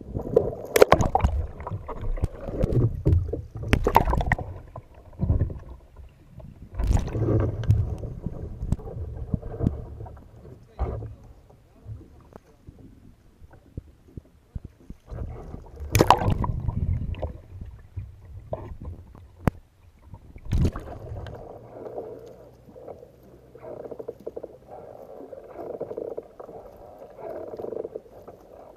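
Water splashing and sloshing around a sea kayak, with several louder splashes or knocks a few seconds apart.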